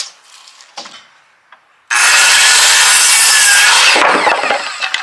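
A saw cutting a strip of wood. It starts suddenly about two seconds in, stays loud for about two seconds, then dies away with a falling pitch.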